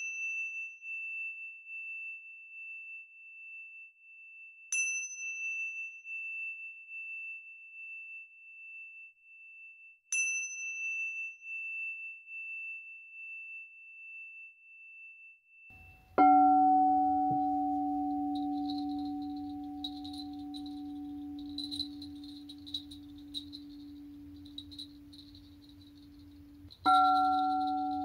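Tingsha cymbals struck together three times, about five seconds apart, each leaving a long high ring. About sixteen seconds in, a frosted quartz crystal singing bowl is struck with a mallet and rings with a steady low tone, and it is struck again near the end.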